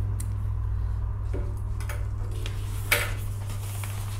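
Stiff plastic florist wrapping film being handled, with a few short crackles and a sharper click about three seconds in, over a steady low hum.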